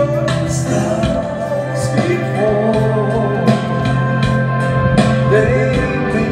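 A man singing karaoke into a handheld microphone over a backing track with a steady beat.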